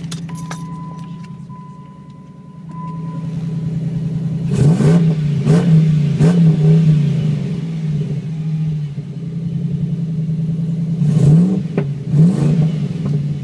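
2007 Jeep Grand Cherokee's Hemi V8 idling through a MagnaFlow straight-through muffler with the resonator deleted, then revved in quick blips: three about a third of the way in and two more near the end. A steady electronic chime sounds for the first three seconds.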